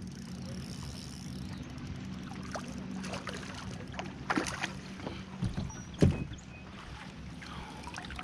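A hooked smallmouth bass being played and reeled in beside a fishing kayak: scattered knocks and splashy water sounds over a steady low hum. The loudest is a sharp thump about six seconds in.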